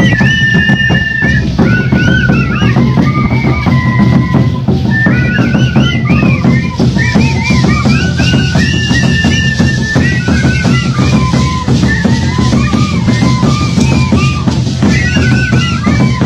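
Music for the shacshas dance: a high, wavering melody played over a steady drum beat, loud throughout.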